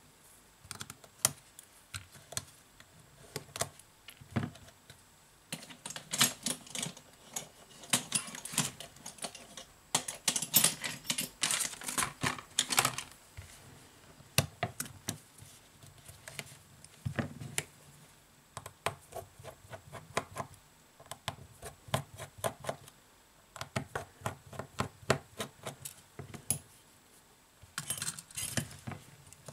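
Rapid bursts of small clicks and taps as a pry tool is worked around the edge of a Samsung Galaxy J7 (2016) to lift its plastic midframe off, with small parts clicking as they are handled.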